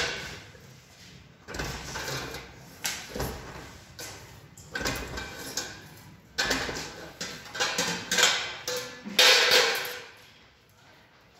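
Sheet metal clanking and scraping: irregular metallic knocks and rattles about a second apart, some ringing briefly, dying away near the end.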